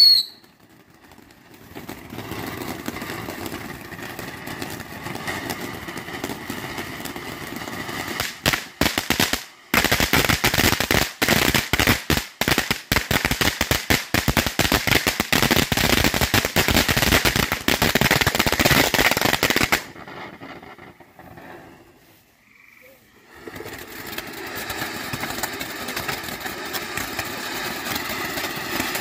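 Firework fountain burning: a whistle cuts off at the very start, then a steady hissing spray. From about nine seconds in, it breaks into a long stretch of loud, dense crackling that stops at about twenty seconds. After a brief lull the hissing spray starts up again.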